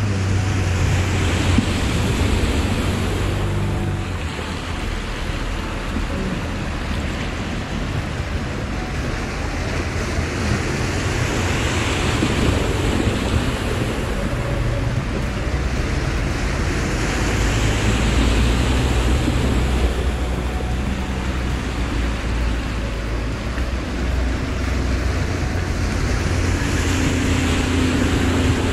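Shallow river water rushing over a ford while four-wheel-drive Toyota LandCruisers drive through it, engines running under a low drone. The splashing surges several times as each vehicle pushes its bow wave through the current.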